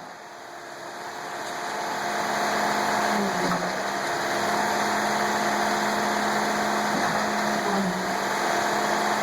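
Concrete truck engine running steadily with a constant hum, fading in over the first couple of seconds.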